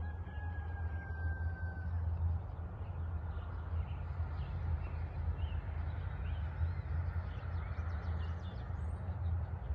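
Outdoor dawn ambience: birds chirping faintly and sporadically over a steady low rumble, with a thin steady whistle-like tone for the first two seconds.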